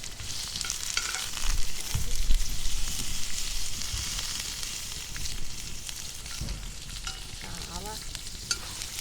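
Salo (pork fat) frying in a pan over a wood fire: a steady sizzling hiss with small crackles and pops. A few low thumps about two seconds in.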